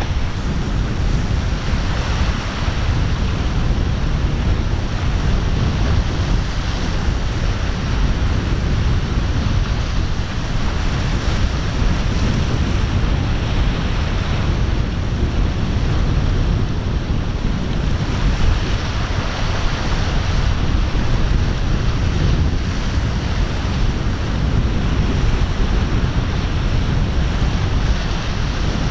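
Rough surf breaking and rolling, a steady rushing hiss that swells and eases, with wind buffeting the microphone as a constant low rumble.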